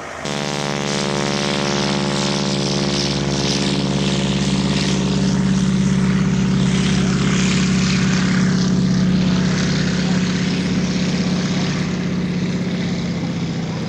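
Propeller-driven piston-engined aircraft running, its steady engine note cutting in abruptly at the start, growing louder over several seconds and easing off slightly near the end.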